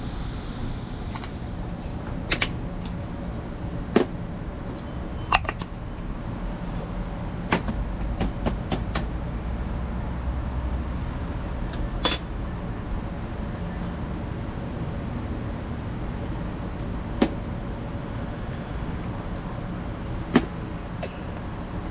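Small objects being handled and set down: about nine scattered clicks and knocks, the sharpest about twelve seconds in, over a steady low hum.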